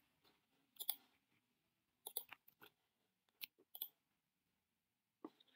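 Faint, scattered clicks of a computer keyboard and mouse: a few isolated keystrokes and button presses, in small clusters with near silence between them.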